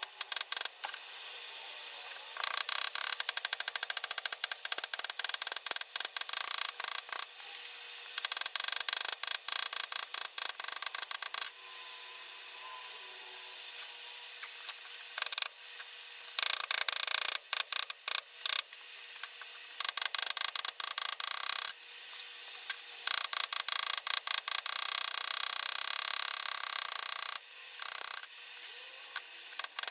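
Blacksmithing work sounds sped up about eight times: hammer blows on hot steel run together into a rapid high-pitched clatter, broken up by quieter stretches of steady hiss while the pieces heat in the forge.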